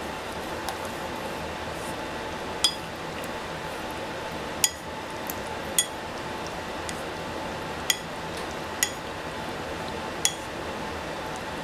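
Utensil clinking against a dish six times, each a short ringing tap spread irregularly over the seconds, over a steady background hum.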